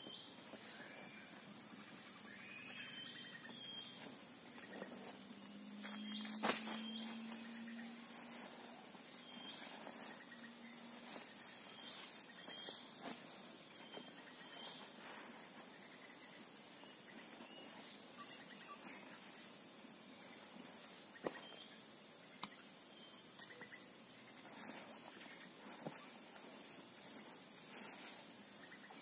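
Tropical forest ambience: a steady high-pitched drone of insects, with scattered short bird chirps. A few sharp clicks stand out, the loudest about six seconds in.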